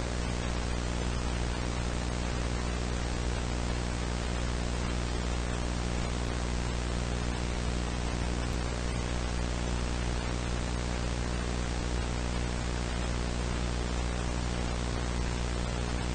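Steady static hiss over a low electrical buzzing hum, unchanging throughout: analog broadcast dead air between emergency alert messages.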